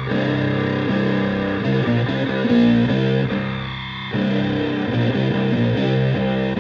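Stratocaster electric guitar played through an ESR Graphic Fuzz pedal into a Fender Twin Reverb–style amp: a fuzzy, distorted riff of sustained notes. The riff eases off briefly about halfway through and then comes back in.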